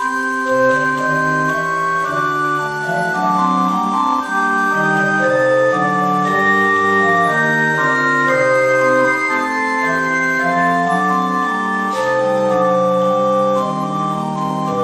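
Charles Viner & Son pipe organ playing a chorale in several voices, held notes moving in steady chords.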